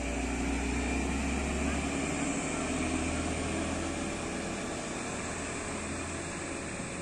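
DB Class 628 diesel multiple unit pulling out of the station, its diesel engine running under load with a steady low drone. The engine's note changes about two seconds in, and the sound fades slightly as the train moves away.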